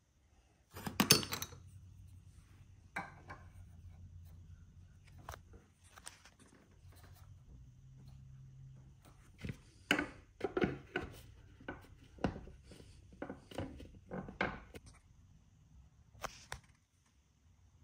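Plastic coolant-filling funnel kit being fitted to a radiator filler neck: a red threaded adapter twisted in and an orange funnel pushed onto it. The result is scattered plastic clicks and light knocks, loudest about a second in and coming thick and fast in the second half.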